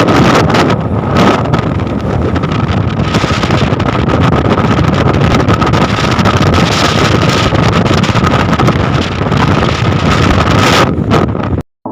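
Storm wind buffeting the microphone on the deck of a longline fishing boat, a loud, dense rush with a steady high whine running underneath. It cuts off abruptly near the end.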